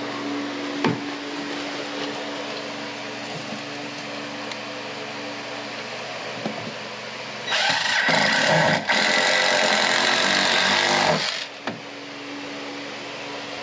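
Cordless drill driving screws into a 2x4 board, running in two bursts: a short one starting about halfway through, a brief stop, then a longer run of about two seconds.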